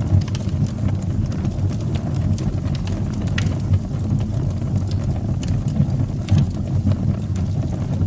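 Fire burning in a fireplace: a steady low roar with scattered crackles and pops, one sharper pop near the middle.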